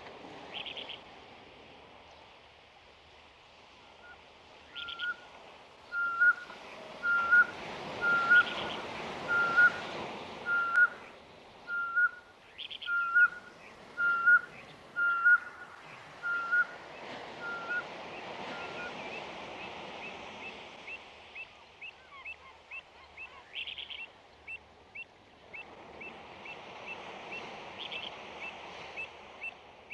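Birds calling: a clear whistled note repeated about once a second for some fifteen seconds, with a few short harsh calls. In the second half it gives way to a quick steady series of short high chirps over soft background noise.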